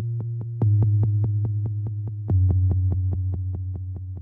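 Electronic synthesizer music: sustained bass notes that change pitch twice, under a quick, steady ticking pulse of about six or seven beats a second, slowly fading toward the end.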